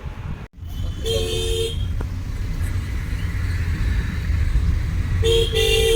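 Road traffic with a steady low engine and road rumble, and a car horn honking: one blast about a second in and a double toot near the end.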